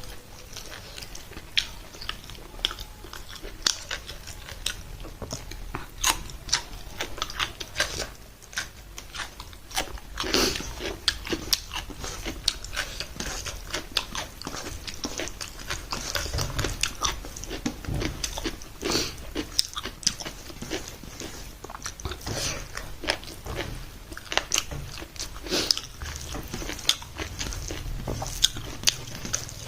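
Close-up mouth sounds of a person eating a meal: biting and chewing, with many short, sharp, irregular clicks.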